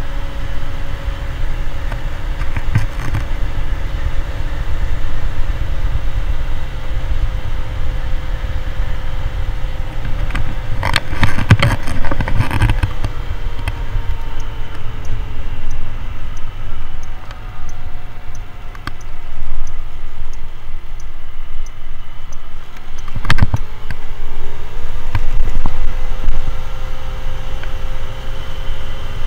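Motor scooter on the move, its engine note under heavy wind rumble on the microphone. The engine pitch drops about halfway through and rises again near the end, with a few brief knocks around 11–12 seconds in and again at about 23 seconds.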